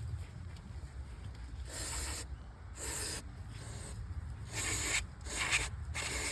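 Hand-tool rasping strokes on the damaged steel thread of a hydraulic steering ram, about five short irregular strokes, cleaning up the thread so it will screw back in.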